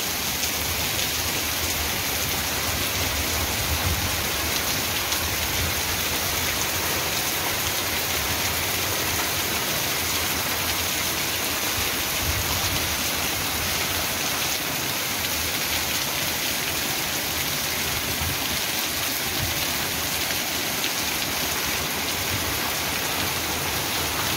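Steady rain falling on a dirt street: an even, unbroken hiss of rain.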